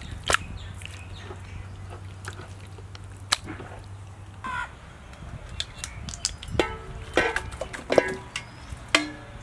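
Several short, harsh bird calls in the second half, crow-like caws, over a low steady hum, with a couple of sharp clicks in the first few seconds.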